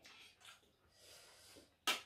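Faint eating sounds close to the microphone, chewing and breathing, then one short, sharp noise near the end.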